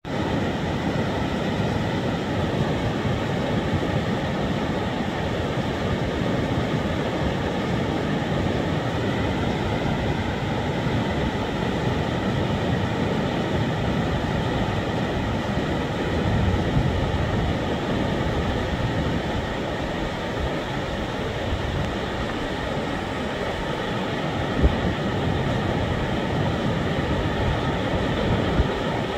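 Mallet steam locomotive 414 and its train running steadily: a continuous rumble with no clear beat, joined by a short click near the end.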